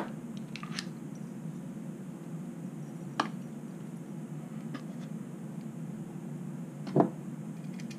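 ABUS 72/40 padlock and its core being handled: a few light metal clicks, one about three seconds in and a louder knock near seven seconds, over a steady low background hum.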